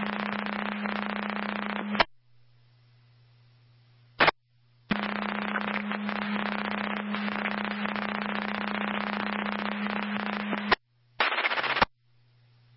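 Two-way radio static heard through a scanner: an open, keyed channel carrying loud hiss and a steady low hum for about two seconds, and again for about six seconds from the middle on, with no voice on it. Between these come short quiet gaps and brief bursts of noise as transmissions key up and drop.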